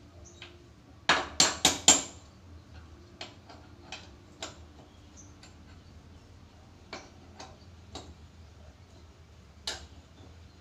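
Sharp metallic clinks and taps of hand tools during a motorcycle engine teardown: four quick loud ones about a second in, then scattered lighter clicks.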